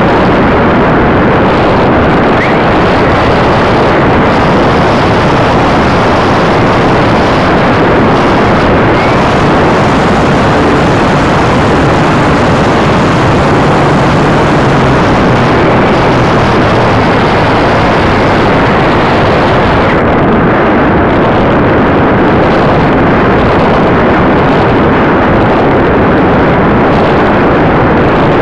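Steady, loud rushing noise with no motor tone, picked up by the glider's onboard FPV camera audio in flight.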